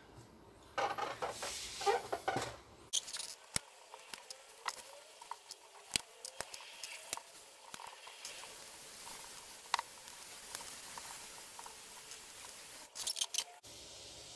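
Quiet handling of nylon paracord as a bracelet is tied on a wooden jig: the cord rustles and rubs as it is pulled through, with scattered light clicks. A short flurry of rubbing and clicks comes near the end.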